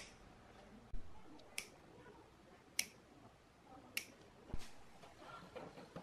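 Diagonal side cutters snipping the tails off cable ties on an amplifier's wiring: four sharp clicks spaced about a second apart, with a couple of dull knocks in between.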